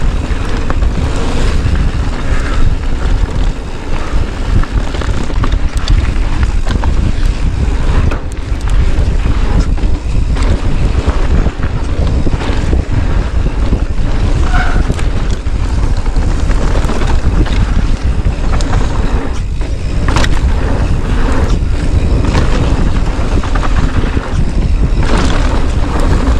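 Heavy wind buffeting on an action camera's microphone while riding fast, with scattered rattles and knocks from a mountain bike rolling over rough trail.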